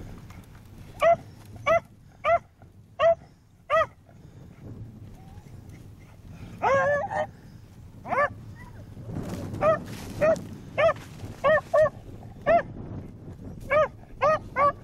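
Beagles giving short, repeated barks on a rabbit's trail, with one longer drawn-out bay about seven seconds in and a quicker run of barks in the second half. Wind rumbles on the microphone underneath.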